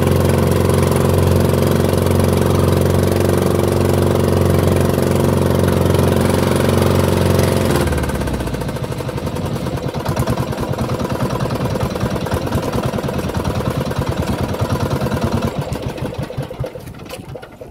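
Small outrigger fishing boat's engine running steadily, then throttled back about eight seconds in to a slow, chugging idle. The engine dies away near the end.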